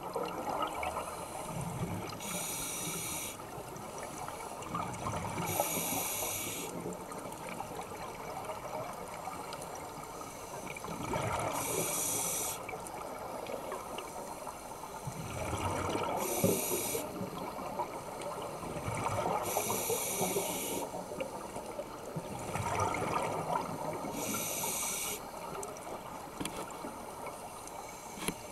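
Scuba diver breathing through a regulator underwater: a hissing inhale, then a gurgling rush of exhaled bubbles. The cycle repeats about six times, roughly every four to five seconds.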